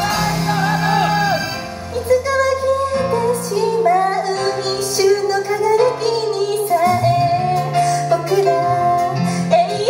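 A female Japanese idol group singing a pop song live into handheld microphones over loud backing music, heard through the hall's PA.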